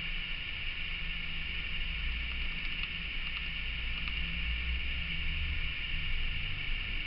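Steady background hiss with a low hum underneath, and a few faint ticks a little past the middle.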